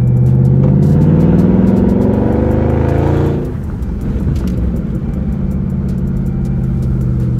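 2019 Dodge Charger Scat Pack's 6.4-litre HEMI V8, mid muffler deleted and resonators kept, heard from inside the cabin: it accelerates with the exhaust note rising for about three seconds, then falls away suddenly and settles into a steady cruise drone.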